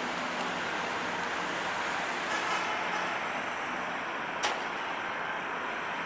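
Steady outdoor background hiss with no distinct source, broken by one sharp click about four and a half seconds in.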